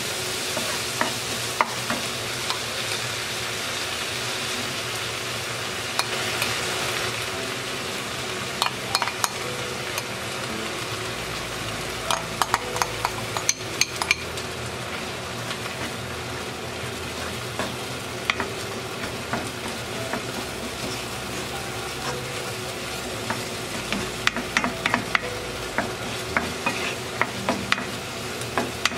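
Shrimp, onion and red chili stir-frying in a nonstick frying pan: a steady sizzle, with scattered clicks and scrapes as a wooden spatula stirs and knocks against the pan.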